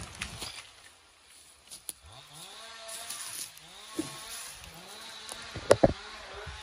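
Faint chainsaw revving up and easing off several times, its pitch climbing, holding and dropping with each cut. There are two sharp knocks shortly before the end.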